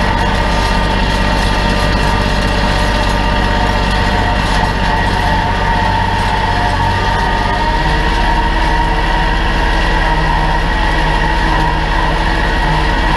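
Kubota L3901's three-cylinder diesel engine running steadily under load, pulling a disc harrow and drag chain harrow, its note shifting slightly about eight seconds in.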